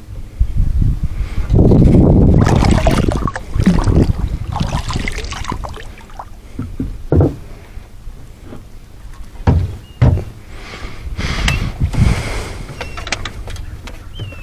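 Irregular knocks and thumps with rushes of noise, as from gear and bodies moving about in a small jon boat, with a few faint short high squeaks near the end.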